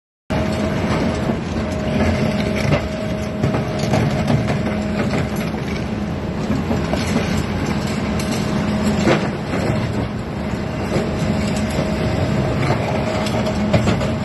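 Excavator with a hydraulic attachment working: a steady mechanical din with a faint constant whine and occasional clanks, cutting in suddenly just after the start.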